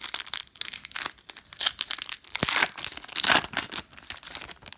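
Plastic trading-card pack wrapper crinkling and tearing as it is ripped open by hand: an irregular crackle with louder rips about two seconds and three and a half seconds in.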